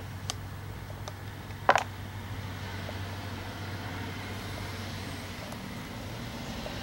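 Steady low hum that fades out about five seconds in, with a sharp knock near the start and a louder one about a second and a half later.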